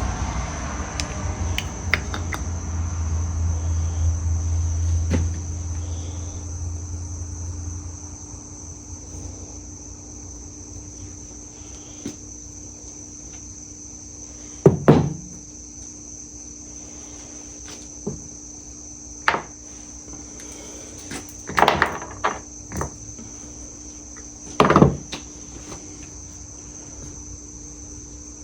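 Tools and engine parts being handled on a workbench while the engine's reed cage is unbolted: a few sharp knocks and clacks of metal set down, over a steady high-pitched whine. A low hum fades out about eight seconds in.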